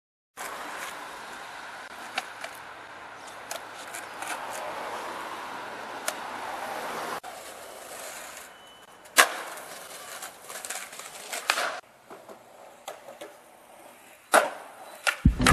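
Skateboard wheels rolling steadily on pavement, then a few sharp clacks of the board popping and landing, with scraping as it slides along ledges.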